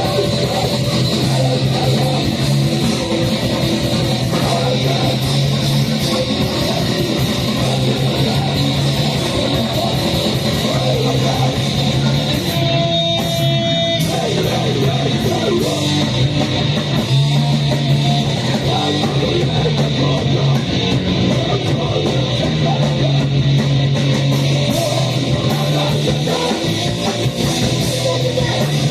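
A live band playing loud, heavily distorted music as one dense wall of sound, which thins out briefly about halfway through.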